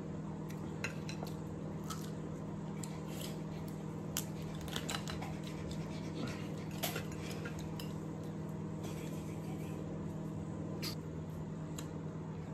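Scattered small clicks and cracks of steamed lobster and crab shell being broken and picked apart by hand, with light clinks of a fork and plates, over a steady low hum.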